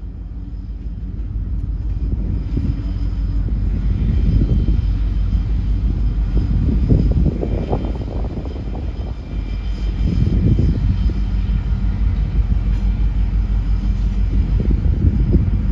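Norfolk Southern diesel locomotive running as it pulls away, a deep, loud rumble that grows over the first few seconds and then swells and dips.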